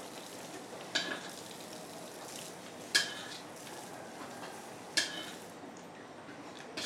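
Food sizzling steadily in a pan, with a metal utensil clinking against the pan four times, about two seconds apart, as it is stirred.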